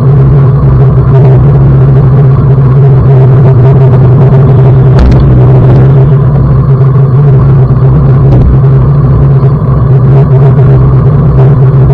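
Loud, steady wind rumble on the microphone of a bicycle-mounted camera riding along a paved road, mixed with road noise, with a constant low hum and no break.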